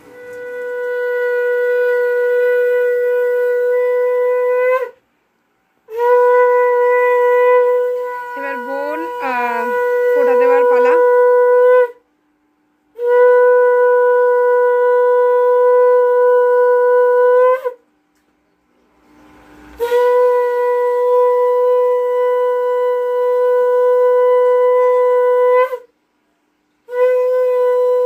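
Conch shell (shankha) blown in long, steady single-pitch blasts, each held four to six seconds with a short break for breath between. This is the conch sounded as part of the Bhai Phota ritual.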